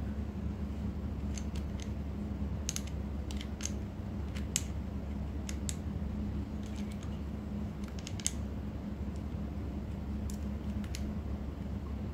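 Light, irregular clicks and ticks of small reel parts being handled and fitted by hand onto an Abu Garcia Pro Max baitcasting reel as washers go on during reassembly, over a steady low hum.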